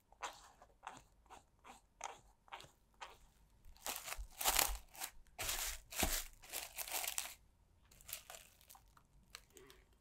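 Plastic cling wrap crinkling as it is pulled and stretched over a glass measuring jug, loudest in the middle few seconds. Before it, a run of short soft strokes about two a second; a few fainter ones near the end.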